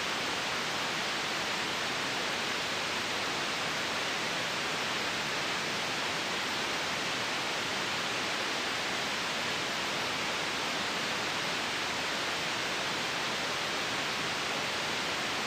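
Steady white noise: an even, unchanging hiss across the whole range, strongest in the upper middle.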